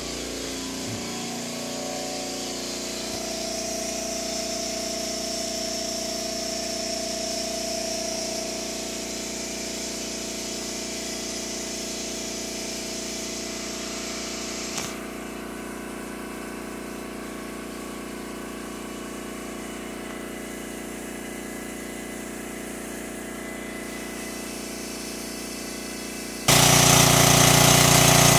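Portable generator's engine running steadily under load with an even hum, quieter and more distant at first, then much louder and close for the last two seconds.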